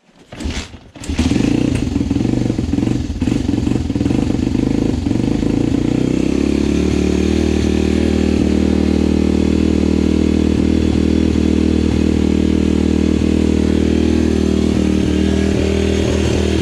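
A 150 cc pit bike's single-cylinder four-stroke engine starts about a second in. It runs unevenly for a few seconds, then settles into a steady idle.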